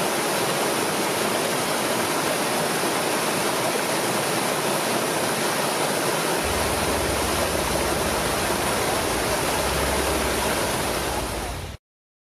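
Steady rushing of flowing water, with a low rumble joining about halfway through. It fades out shortly before the end.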